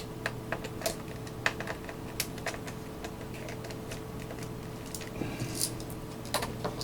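Scattered small clicks and taps of metal parts being handled as the shielding and screws come off an opened Tascam Portastudio 414 MKII cassette multitrack, with a sharper click near the end. A steady low hum runs underneath.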